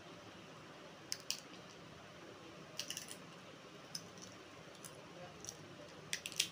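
Close-up eating sounds of a boy eating rice by hand: scattered short clicks and smacks from chewing and from his fingers working the rice on the plate, over a faint steady hiss.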